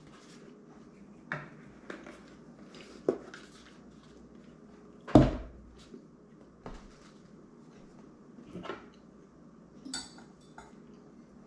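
Scattered clicks and taps of a plastic milk bottle being capped and handled at a table. The loudest is a single solid thump about five seconds in as the bottle is set down on the wooden tabletop, with a few lighter taps after it.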